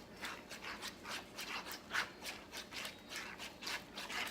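Glue-and-activator slime being stirred in a bowl: a rhythmic scraping and rubbing, about three or four strokes a second.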